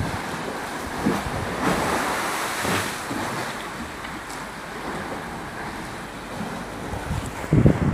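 Steady rushing, splashing water: a swimming pool's water sloshing as the ground shakes in an earthquake.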